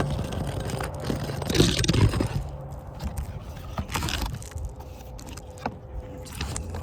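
Irregular scraping and rustling with a few light knocks, loudest about two seconds in and again around four seconds.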